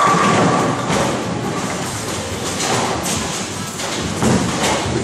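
Bowling alley din: bowling balls rolling and thudding on the wooden lanes and pins clattering, with louder knocks at the start and about four seconds in as a ball is released onto the lane.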